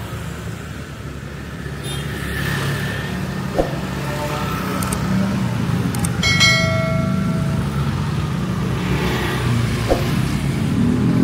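Motor scooter engines running as scooters ride past, getting louder toward the end. A short ringing tone comes about six seconds in, and there are two sharp knocks.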